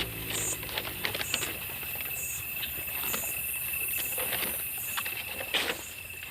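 Night-time outdoor ambience: insects keep up a steady high trill, with a sharper high chirp repeating about once a second, over scattered light clicks and knocks. A low motor hum fades away in the first second.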